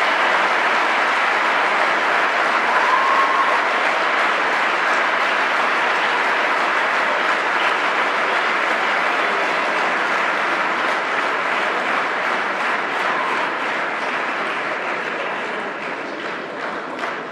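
A large audience applauding steadily, thinning out near the end into scattered individual claps.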